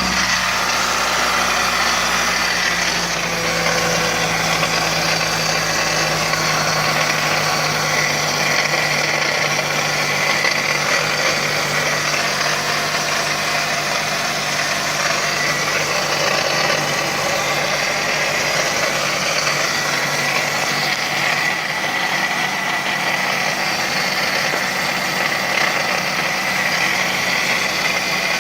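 2005 Toyota Corolla idling just after a cold start, with an odd, steady noise over the engine that comes only when the engine is cold. The owner suspects it is tied to a P2445 code (secondary air injection pump).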